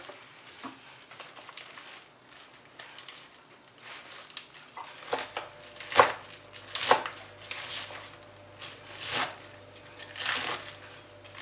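Large sorrel leaves rustling as a handful is gathered from the pile. From about five seconds in, a kitchen knife chops through the bunched sorrel onto a cutting board: half a dozen sharp strikes, roughly a second apart.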